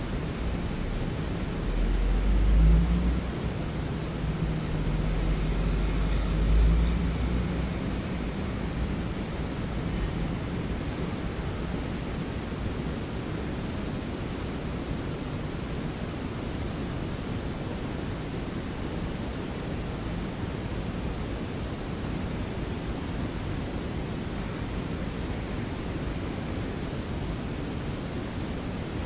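Steady low rumble and hiss inside a car standing at a red light, with a low hum swelling twice, about two and seven seconds in.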